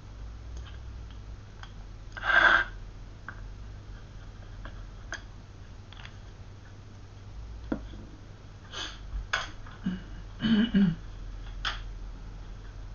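Small plastic paint dropper bottle being picked up and handled on a cutting mat: scattered light clicks and knocks, a louder short noise about two seconds in, and a cluster of knocks and clicks near the end, over a steady low hum.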